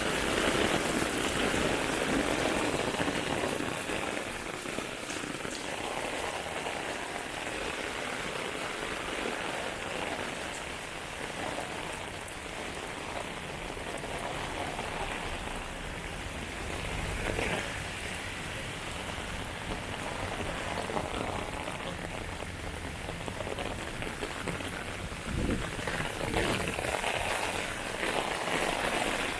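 Heavy rain falling steadily, pattering on the pavement and on an umbrella overhead.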